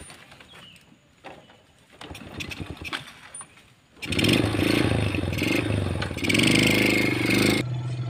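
Underbone motorcycle being kick-started: a few knocks from the kick-starter, then about four seconds in the engine runs loudly and revs up and down for a few seconds before cutting off abruptly.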